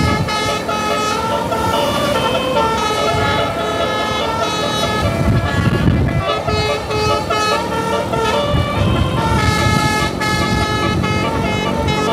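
Tour bus's multi-tone telolet air horn playing a melody, its loud tooting notes changing pitch every fraction of a second.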